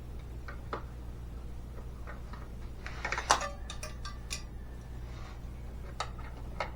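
Scattered clicks and a short clatter of small hard parts being handled, loudest about three seconds in, over a steady low hum.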